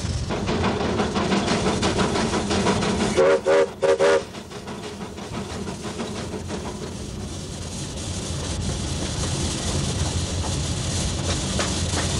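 Narrow-gauge steam locomotive working hard, heard from the cab, with its exhaust beating steadily. About three seconds in, the steam whistle gives short toots in two quick pairs.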